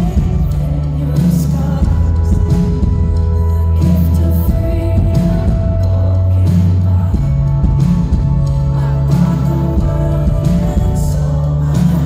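Live worship band: a woman singing lead into a microphone over bass guitar and a steady beat, with bass notes changing about every two seconds.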